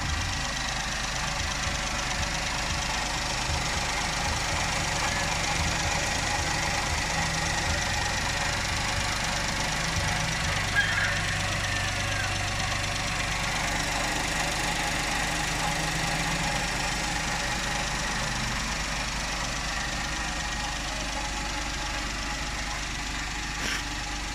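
Suzuki K6A three-cylinder turbo engine idling steadily.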